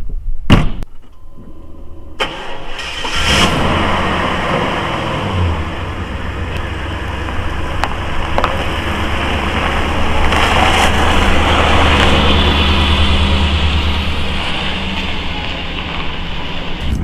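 A couple of sharp knocks just after the start, then an RV's engine starts about two to three seconds in and runs steadily with a low, even hum.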